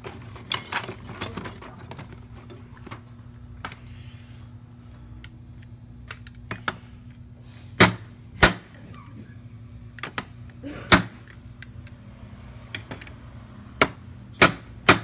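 Sharp metallic knocks and clicks from working on a brass mortise lock by hand, a handful of louder strikes among lighter taps, over a steady low hum.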